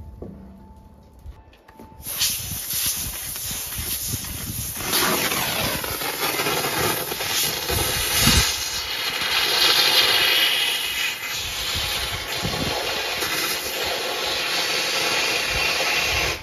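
Thermal lance (oxygen-fed exothermic cutting rod) burning with a loud, steady rushing hiss as it blows through the middle of a rust-seized steel pin. The hiss starts suddenly about two seconds in and stops suddenly near the end.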